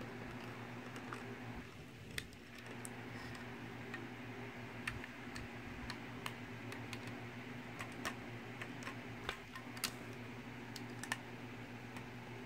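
Mega Bloks plastic construction bricks clicking as they are handled and pressed onto a build: irregular sharp clicks over a steady low hum.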